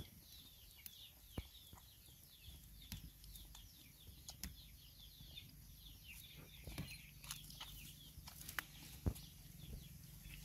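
Chicks peeping faintly in a steady chorus of many short, high, falling peeps that overlap, with scattered light clicks and rustles.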